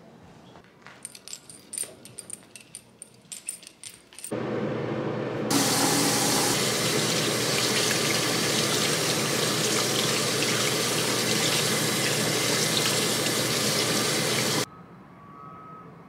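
A few light clicks and jingles, then water from a sink faucet pouring over hands in a basin from about four seconds in, stronger a second later, steady, and cutting off suddenly near the end.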